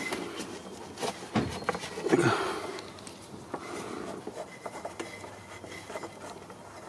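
Scuffs, rubbing and a few knocks as a gloved hand works the oil filler cap loose on a car engine, with a jacket sleeve brushing close to the microphone; the knocks come in the first couple of seconds, then the rubbing goes on more quietly.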